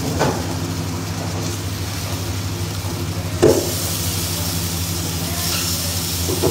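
High-flame gas burner running steadily under an iron kadai of hot oil, with the oil sizzling. About three and a half seconds in, marinated pieces land in the oil with a short thump, and the sizzling turns louder and hissier after it.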